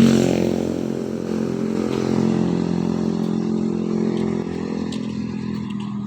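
A motor vehicle engine running at steady revs, slowly getting quieter.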